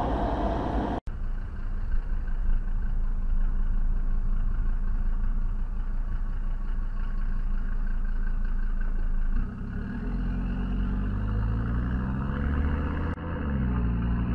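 Car engine and road noise heard from inside the car, a steady low rumble. About two-thirds of the way through, the engine pitch starts climbing as the car accelerates; it drops briefly near the end, then climbs again.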